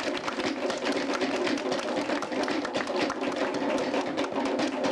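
Fast, dense drumming of rapid sharp strokes, with a crowd murmuring beneath.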